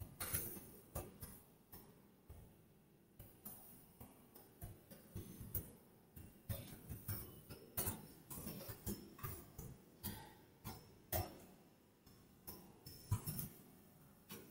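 Typing on a computer keyboard: faint, irregular keystroke clicks, a few a second, with brief pauses.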